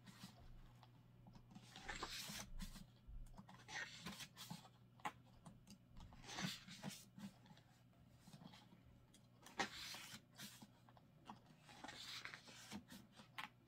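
Faint swishes of a photobook's glossy pages being turned by hand, one every two or three seconds, with light paper clicks between.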